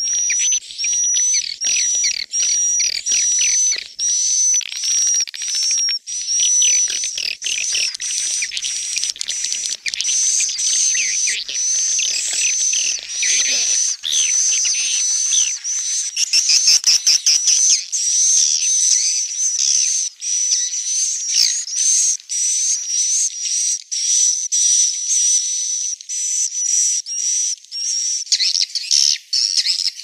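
Recorded swiftlet calls, the kind played from a swiftlet house to lure edible-nest swiftlets: a dense chorus of high chirps and twittering, with a short whistled note repeating about twice a second.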